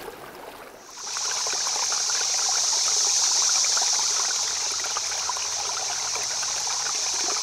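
Faint stream water, then about a second in a louder, steady, hissing rush of water starts abruptly and holds.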